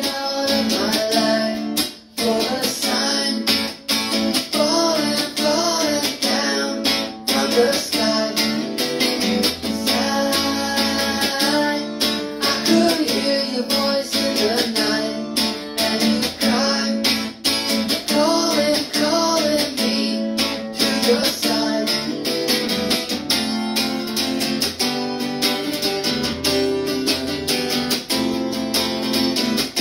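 A man singing while strumming chords on an archtop hollow-body guitar. In the last several seconds the singing stops and the guitar plays on alone.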